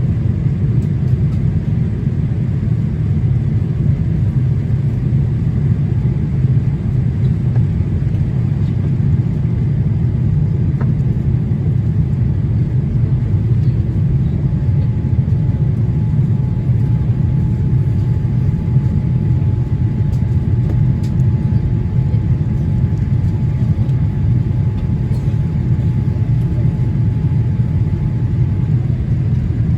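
Steady low cabin drone of a Boeing 787-8 Dreamliner in flight on approach: engine and airflow noise with no breaks. A faint steady whine comes in a few seconds in and stops near the end.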